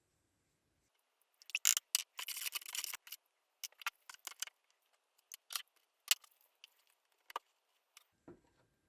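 Sharp clicks, light scrapes and rattles of small hard objects being handled, with a dense run of scraping clicks from about one and a half to three seconds in, then scattered single clicks.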